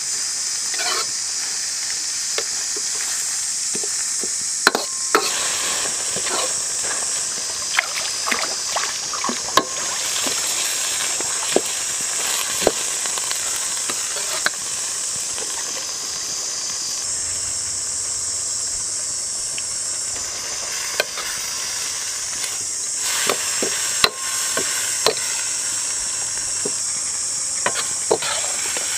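Chicken liver and vegetables sizzling in a wok as they are stir-fried, a steady high hiss, with a metal spatula clinking and scraping against the pan at irregular moments.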